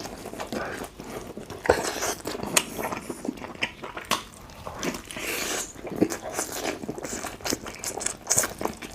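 Close-miked biting and chewing of a roast chicken drumstick: irregular wet clicks and smacks of mouth and teeth working on the meat.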